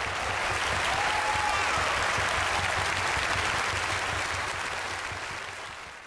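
Congregation applauding; the clapping holds steady, then fades out near the end.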